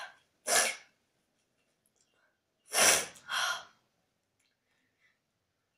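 Three short, sharp puffs of breath: one about half a second in, then two in quick succession about three seconds in.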